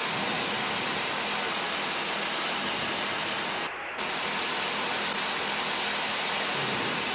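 Steady cabin noise of a Czech Sport Aircraft SportCruiser (PS-28) light-sport plane in flight: its Rotax 912 engine and propeller running under a hiss of airflow, with a brief drop in level about four seconds in.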